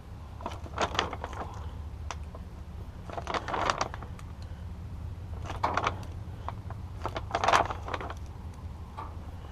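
Dynamat Extreme foil-backed sound-deadening sheet being cut and handled, giving four short bouts of crackling and rustling over a steady low hum.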